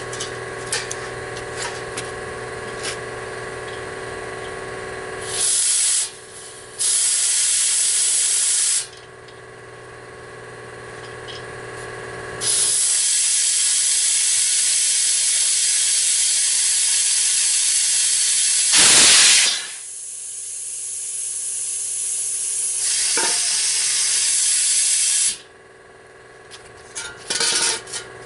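Compressed air hissing in repeated bursts, one long one of about twelve seconds, as it is blown into a truck tire whose bead won't seat, the air escaping past the bead; about two-thirds of the way through comes a louder sharp blast. Before the first burst, a machine hums steadily.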